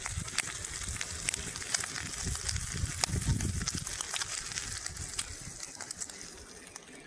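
Food frying over a campfire: steady sizzling with many irregular sharp crackles and pops, over a low rumble that fades near the end.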